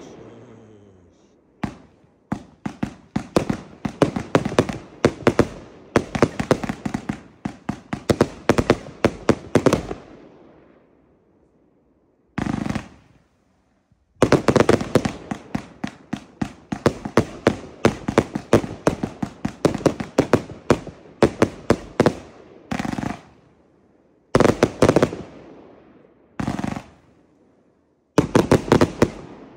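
Consumer firework cakes (compound batteries) firing: rapid runs of sharp shots and aerial bursts, several a second, in two long volleys with a short break between them, then a few brief separate salvos near the end.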